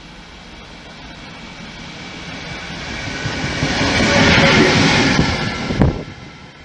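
DB class 152 electric locomotive running alone past at speed: the rumble and hiss of wheels on rail swell to their loudest about four seconds in, then fade as it draws away, with a single sharp knock shortly before the end.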